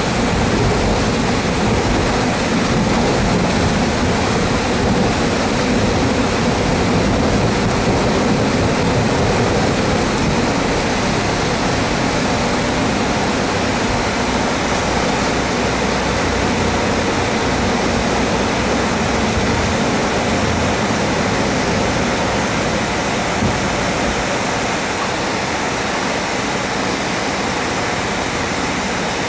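MD-83 on its takeoff roll and climb-out, heard inside the cabin: the rear-mounted Pratt & Whitney JT8D engines at takeoff thrust and the rushing air make a loud, steady noise, with a low rumble from the wheels on the runway that fades about twenty-four seconds in as the jet lifts off.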